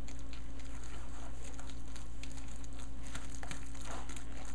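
Soft, faint stirring of thick mashed potatoes in a bowl, with a few light ticks, over a steady low hum.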